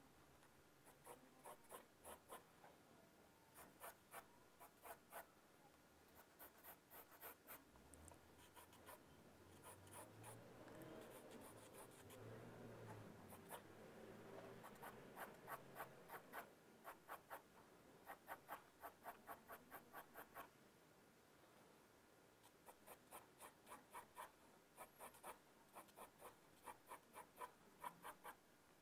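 Faint scratching of a graphite pencil on drawing paper: quick, short strokes in runs as the lines are gone over again and again to darken them. There is a softer, smoother stretch near the middle.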